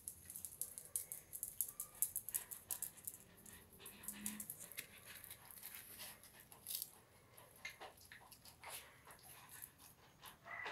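Miniature pinschers moving about and playing, making a patter of quick, light clicks and scratches, with a short low sound about four seconds in.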